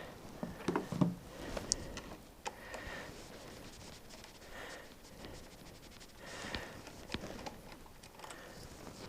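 Scattered small clicks, taps and rustles of hand work on a motorcycle battery terminal, as the charger cable's black lead is fitted, with a sharper knock about a second in.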